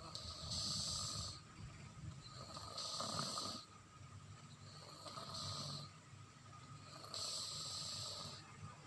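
A sleeping toddler snoring loudly: four snoring breaths about two seconds apart.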